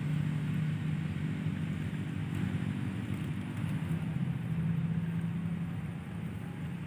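An engine running steadily nearby with a low hum, its pitch rising slightly about four seconds in.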